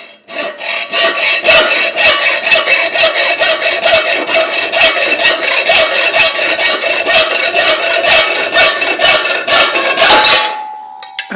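Hacksaw cutting 5/16-inch mild steel round rod by hand: steady, even back-and-forth strokes with a metallic ring from the blade. The sawing stops about ten seconds in.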